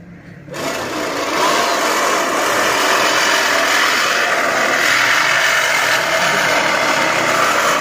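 Manual push reel lawn mower being pushed across grass, its spinning reel blades cutting with a steady whirring noise that starts about half a second in.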